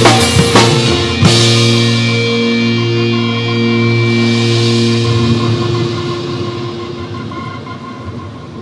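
Acoustic drum kit striking the final accents of a pop song cover over a backing track, three loud hits in the first second or so. The backing track's last held chord and the cymbals then ring on and fade away over several seconds.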